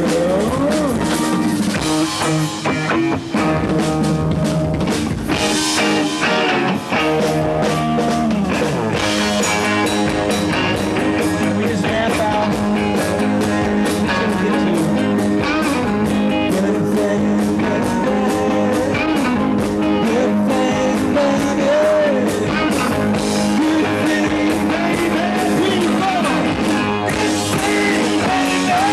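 A rock band playing live: electric guitars and a drum kit going at full volume, with a melody line sliding up and down over the top.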